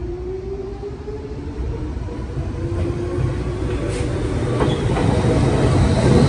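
Red Meitetsu electric commuter train pulling away, its traction motor whine rising steadily in pitch as it accelerates and growing louder. From about four seconds in, wheels clicking over rail joints come in as the cars pass close by.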